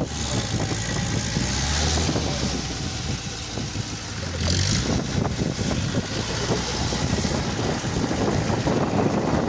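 Engine of a 4x4 off-road vehicle running as it drives over a rough track, with constant knocks and rattles from the bumpy ground. Two bursts of hiss come through, one in the first two seconds and one about four and a half seconds in.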